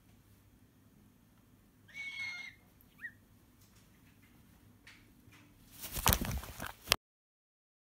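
A cockatoo gives one short call about two seconds in and a brief chirp a second later. Near the end comes a loud burst of rustling and knocking right against the microphone, which cuts off suddenly.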